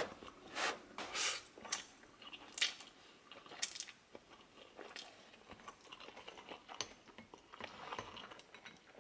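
A person eating instant ramen noodles: chewing and slurping mouth sounds in short, irregular bursts about once a second.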